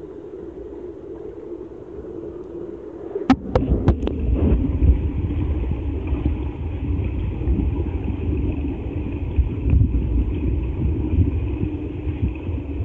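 Muffled underwater rumble of water against a submerged camera in a swimming pool, uneven and low. A few sharp clicks and splashes come a little over three seconds in, as the camera goes under the surface.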